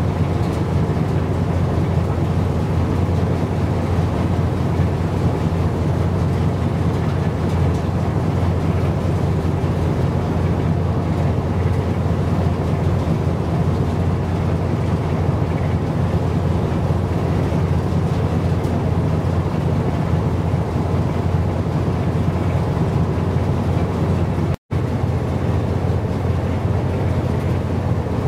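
Steady low rumble of a vessel's engine under way, mixed with wind and water noise. It cuts out for a split second near the end.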